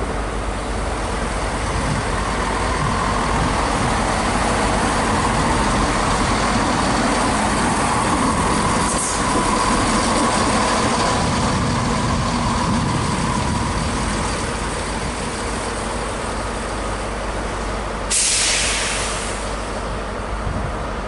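CrossCountry Class 170 Turbostar diesel multiple unit passing, its diesel engines running and wheels rumbling on the track, with a steady mid-pitched tone through the middle. Near the end a sudden short hiss of released air cuts in.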